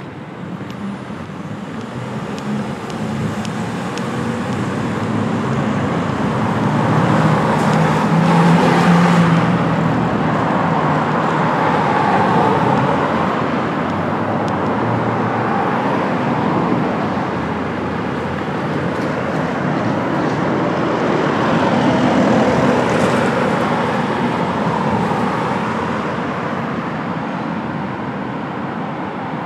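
Road traffic on a city street: a steady wash of car and tyre noise that swells as vehicles pass, loudest about a third of the way in and again about three-quarters of the way in.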